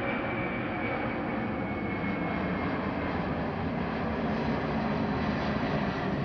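A McDonnell Douglas DC-10-10's three General Electric CF6-6 turbofan engines climbing out after takeoff: a steady, dense jet noise that grows slightly louder, with a faint high whine slowly dropping in pitch.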